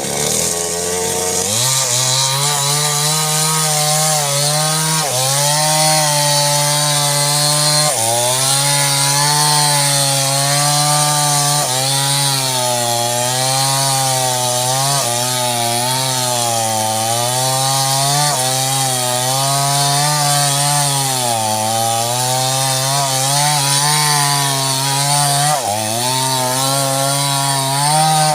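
Small two-stroke chainsaw cutting through sengon wood, the engine held at high revs under load. Its pitch sags and recovers every few seconds as the chain bites into the cut.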